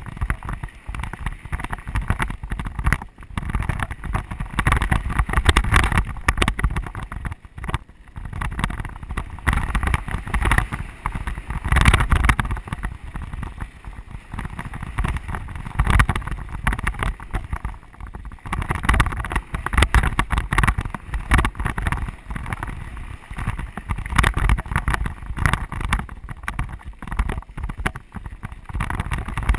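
Wind buffeting the camera microphone, mixed with the rumble and rattle of a mountain bike rolling fast over a rough dirt singletrack. It is a continuous jolting roar with no engine note.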